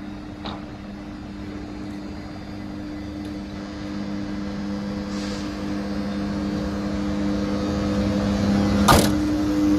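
ČD class 362 electric locomotive moving slowly along the platform, its traction equipment humming in two steady tones that grow louder as it comes close. A single sharp clank about nine seconds in.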